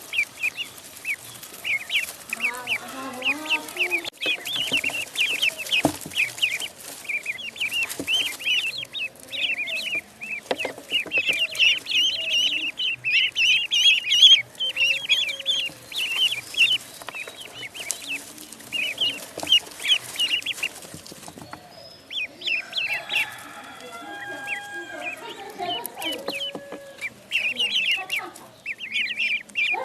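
Ducklings peeping: a steady stream of short, high-pitched calls in quick succession, thinning out about two-thirds of the way through, where some lower calls come in, then picking up again near the end.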